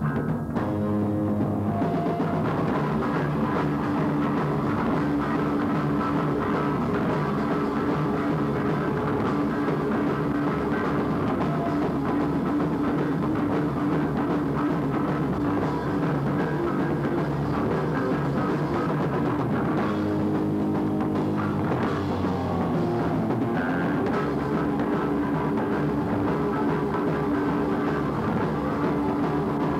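Punk/metal band playing live on electric guitar, bass guitar and drum kit, steady and loud with no breaks, heard through a lo-fi VHS tape recording.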